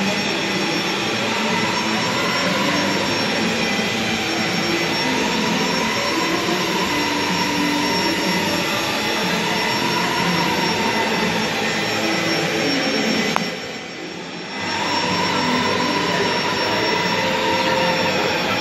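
Steady, loud rushing background noise of a large indoor mall hall, with faint wavering tones beneath it. It dips briefly about thirteen and a half seconds in, then returns.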